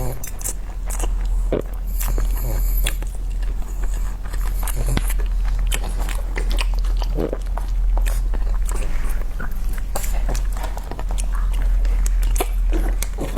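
Close-up eating sounds: a person biting and chewing food, with many small crunches and moist clicks, over a steady low hum.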